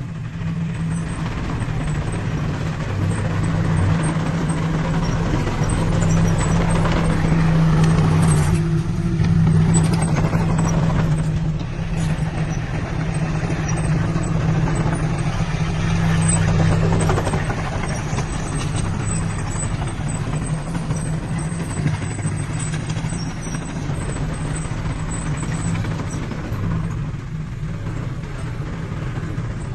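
Heavy diesel earthmoving machinery running under load, its engine level swelling and easing several times, with an occasional short knock.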